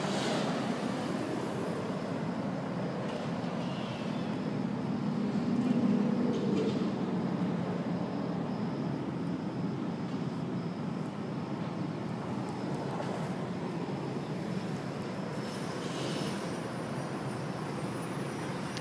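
A steady low rumble, swelling about six seconds in, with a few brief rustles.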